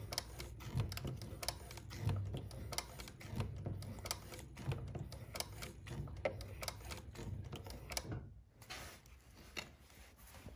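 Consew 206RB industrial walking-foot sewing machine stitching through a few layers of thick veg-tan leather, about a quarter inch, driven by a servo motor with a speed reducer. Its needle and feed strokes make a fast, even clatter of clicks that stops briefly about eight seconds in, then picks up more softly.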